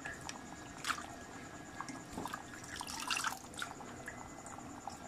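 Kare-kare's peanut sauce simmering in a pan, with a steady low bubbling and scattered small pops and drips that come in a quick cluster about two to three and a half seconds in.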